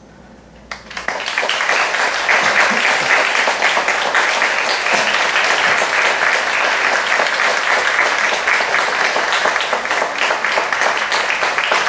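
Small audience applauding: after a brief hush, clapping breaks out just under a second in and carries on steadily.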